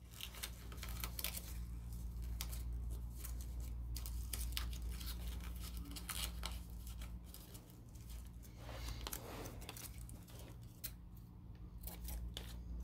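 Paper rustling and crinkling in many small, quick scrapes as the flaps of a folded origami figure are tucked in by hand, over a steady low hum.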